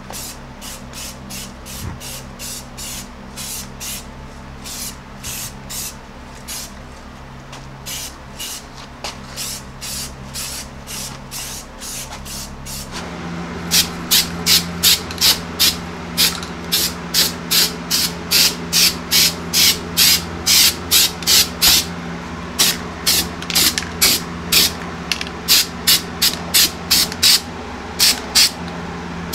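Aerosol spray cans spraying in short repeated bursts, about two a second: Rust-Oleum primer going onto bare steel. About 13 seconds in, the sound switches to louder bursts of Dupli-Color truck bed coating.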